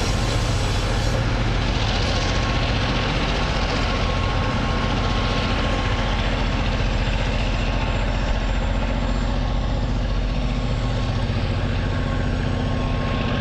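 The last ore wagons rolling past over the crossing for the first second or so. Then a vehicle engine idles steadily with a low hum that holds at the same level.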